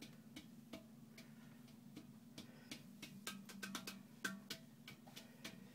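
Faint, irregular taps and clicks, some with a short ringing tone, from a hand percussion instrument being tapped, coming more often in the second half. A steady low hum runs underneath.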